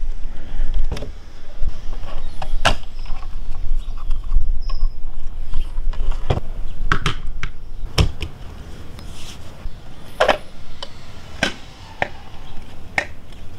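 Hard plastic clicking and scraping as the WaterGuru Sense skimmer-lid housing is pushed open at its tabs and its two halves are handled. There is a sharp click every second or two over a steady low rumble.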